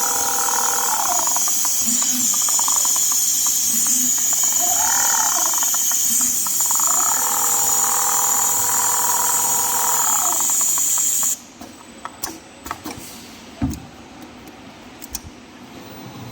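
Industrial rotary-head leather sewing machine running in short test bursts: its motor whine rises, holds and falls three times over a steady high hiss. About 11 seconds in the hiss stops and a few clicks and knocks follow.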